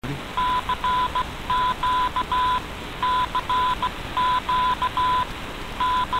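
Morse code sent as a single steady tone of about 1 kHz, in dashes and dots spelling CQ DX and starting over near the end. It comes through a shortwave AM receiver, with a hiss under the tone.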